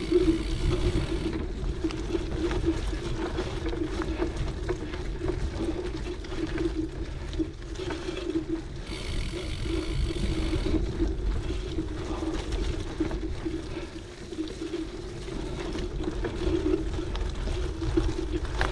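Cyclocross bike rolling along a dirt forest trail: steady tyre rumble and wind buffeting on the bike-mounted camera's microphone, with a brief higher buzz for about two seconds near the middle.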